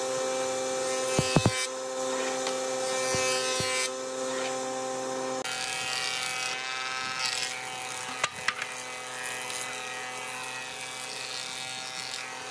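Combination planer-thicknesser running with a steady whine as a wooden board is fed across its spinning cutterhead, the pitch of the whine shifting about halfway through. A few short sharp knocks sound over it.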